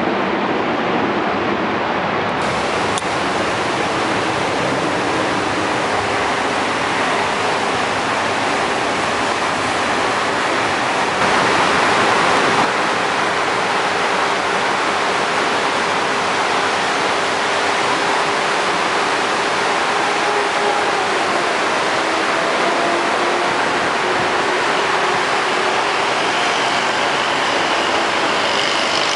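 Steady outdoor rushing noise with no distinct events, a little louder for about a second around twelve seconds in.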